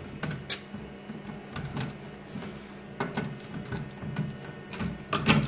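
Scattered plastic clicks and knocks as the frame of a concealed cistern's flush panel is pulled and worked loose with a screwdriver, the sharpest click about half a second in and a cluster near the end.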